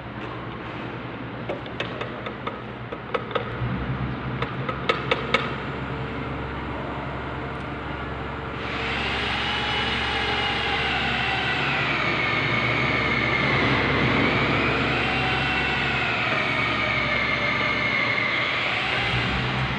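A long-handled paint roller tapping against the rim of a paint can in a run of light taps. Then, from about nine seconds in, the roller is rolled along the concrete floor laying yellow line paint, with a steady, high, wavering squeal that drifts up and down in pitch.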